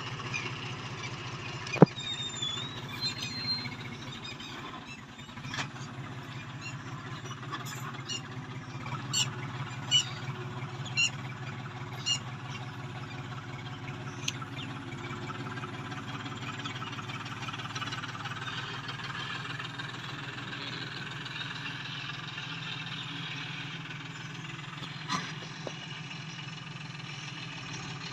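John Deere 5310 tractor's three-cylinder diesel engine running steadily under load while pulling a rotavator through the soil. A single sharp click sounds about two seconds in, and a run of short, high ticks comes about a third of the way through.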